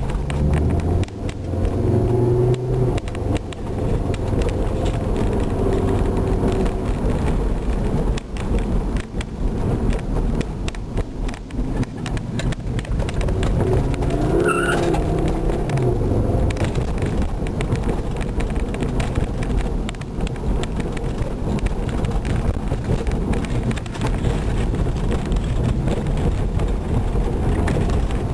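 Volvo car driving along, its engine running steadily under road noise. Midway there is a brief change in pitch with a short higher tone.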